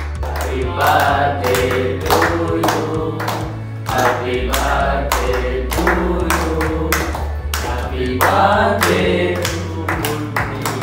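A group of men singing together and clapping in a steady rhythm, with music and a bass line underneath.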